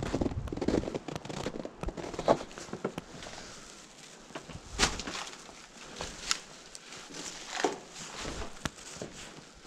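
Footsteps crunching through snow, then separate crunches and cracks about once a second as the steps go over debris and rubble.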